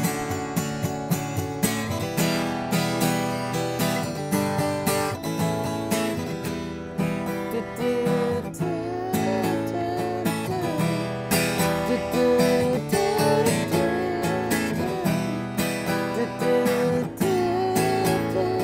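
Steel-string acoustic guitar strummed in a steady rhythm, with chords ringing between the strokes.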